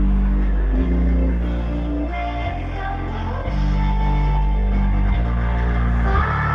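A song played loudly through a 2.1 amplifier driven to overload into a subwoofer and stereo speakers, dominated by deep held bass notes that change about once a second.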